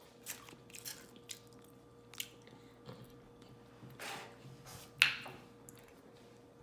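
Close-miked chewing with wet smacking and clicking mouth noises, one sharp, louder smack about five seconds in.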